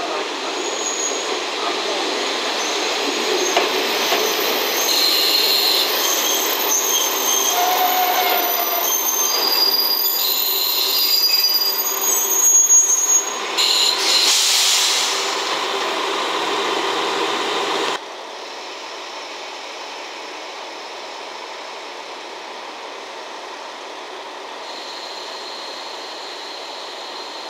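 KiHa 40-series diesel railcars running into a station, their wheels and brakes squealing in several high tones over the rumble of engines and wheels. About two-thirds through the sound drops abruptly to a quieter, steady running sound of the train at the platform.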